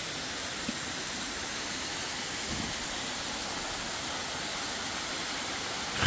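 Steady rushing hiss of water from a low-running mountain waterfall and its rocky stream, with the flow at its weakest.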